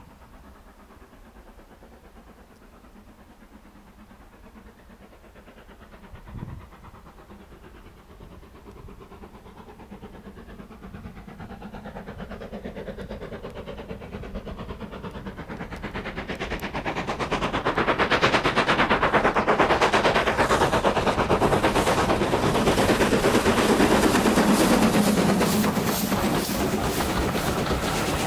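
Southern Railway U class 2-6-0 steam locomotive 31806 working a passenger train toward the listener. Its exhaust beats grow from faint to loud over the first half and become a fast, loud chuffing in the second half as it thunders past. Near the end come the rumble and clatter of its coaches going by.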